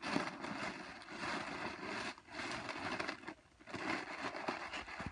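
Helium rushing out of the neck of a foil party balloon as it is inhaled from and squeezed, a steady hissing rush with the crinkle of the crumpling balloon. It breaks off briefly twice, about two seconds in and again at about three and a half seconds.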